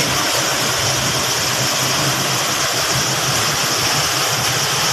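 Waterfall: a loud, steady rush of falling water with no change throughout.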